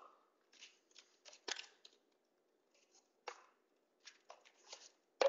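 Plastic water bottles and other household items used as bowling pins being stood back up on a gym floor: a scattered series of light taps and clicks, the loudest just before the end.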